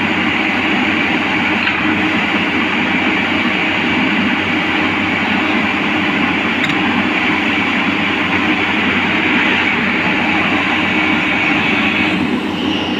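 Tata Hitachi EX210LC crawler excavator's diesel engine and hydraulics running loudly and steadily.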